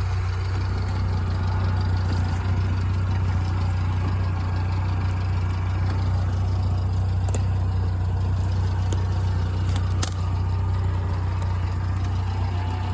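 A vehicle engine idling steadily with a low, even hum, with a few sharp clicks about seven and ten seconds in.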